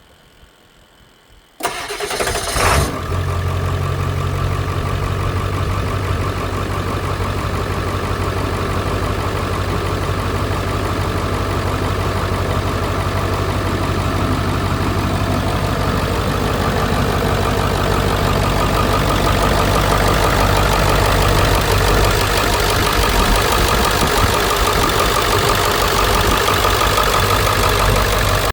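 A 7.3 Power Stroke V8 turbo-diesel briefly cranks and fires about two seconds in, then idles steadily with its fresh alternator and belt fitted.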